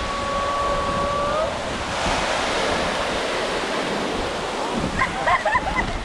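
Ocean surf washing steadily onto the beach, with wind on the microphone. A single held tone carries through the first second and a half, and brief high voices come near the end.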